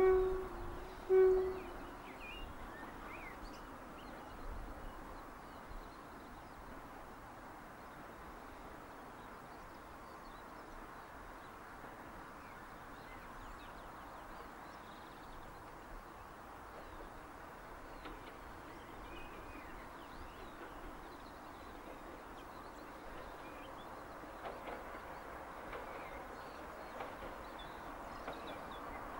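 A diesel locomotive's horn ends a long low note at the start and gives one more short blast about a second in. After that comes a faint steady hum from the distant locomotive, growing a little louder near the end as it approaches, with scattered bird chirps.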